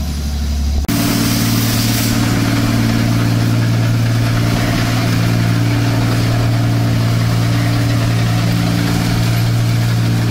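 Engine of an 8060 rice combine harvester running at a steady speed as the machine drives, a steady low hum with several pitched tones. In the first second a different, lower engine drone is heard, then cuts off abruptly.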